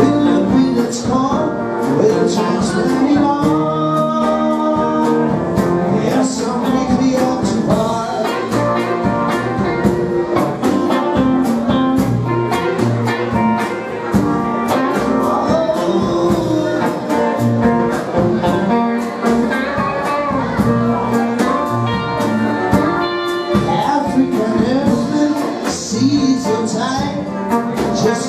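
Live band playing a song on two electric guitars, one of them a semi-hollow body, with electric bass and a drum kit, and a man singing into the microphone over them.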